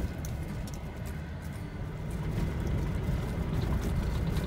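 A car driving on a gravel road, heard from inside the cabin: a steady low rumble of tyres and engine, with scattered light ticks of gravel.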